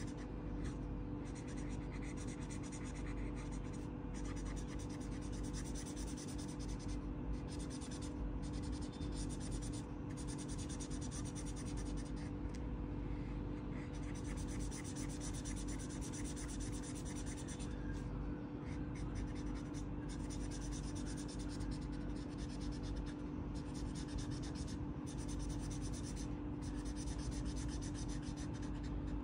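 A felt-tip marker scratching on paper in quick back-and-forth strokes as an area is coloured in, over a steady low hum.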